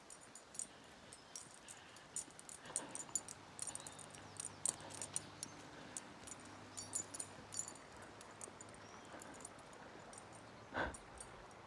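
Dog collar tags jingling irregularly with the dogs' steps, in quick clusters of light metallic clinks, with a single louder brief sound near the end.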